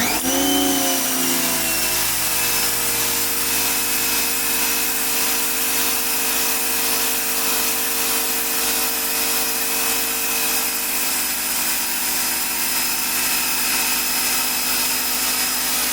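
Electric pressure washer spinning up with a rising whine, then its motor and pump running steadily while the high-pressure water jet hisses against concrete through the 15-degree nozzle.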